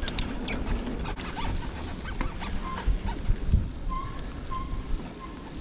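1994 Specialized Stumpjumper FSR mountain bike rolling down a dirt trail: a steady low rumble of tyres on the ground, with clicks and rattles of the chain slapping against the frame over bumps.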